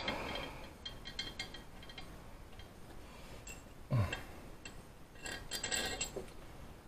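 Light metal-on-metal clinks and ticks of steel cylinder-head bolts being handled and set into the head, in scattered groups, with a single dull knock about four seconds in.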